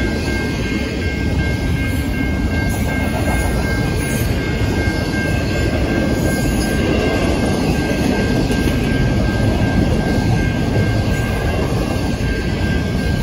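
Intermodal freight train's container well cars rolling past at speed, a steady heavy rumble of steel wheels on rail. A thin steady high-pitched tone sits above it.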